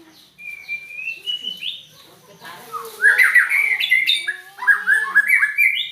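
White-rumped shama singing: a long rising whistle, then a rapid run of varied whistled notes and pitch glides, louder in the second half.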